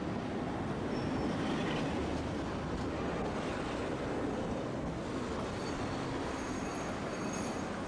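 Tosaden streetcar running along its track, a steady noise of wheels and running gear heard from inside the tram, with faint high-pitched tones in the second half.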